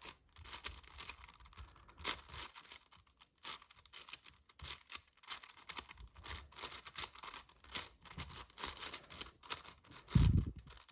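A magnetic 7x7 puzzle cube being scrambled by hand: rapid, irregular clicking and rustling as its layers are turned. There is a low thump about ten seconds in.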